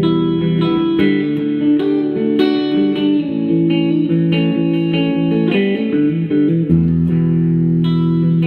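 Electric guitar played through a 1973 Fender Super Reverb silverface amp on its vibrato channel, with notes and chords picked in a continuous run.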